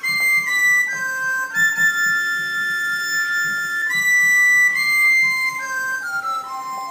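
Irish tin whistle blown through the nose, together with mouth whistling. The two play a slow melody in two-part harmony of long held notes.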